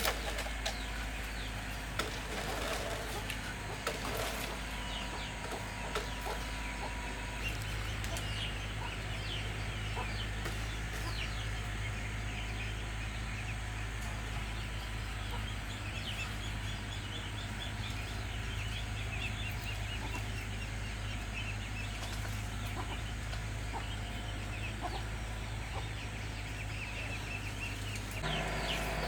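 Chickens clucking and calling in short, faint chirps over a steady low hum.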